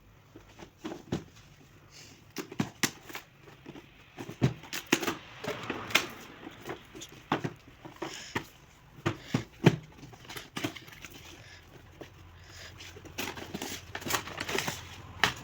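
Hands unboxing a toy RC car: irregular clicks, taps and light crinkling of packaging and plastic.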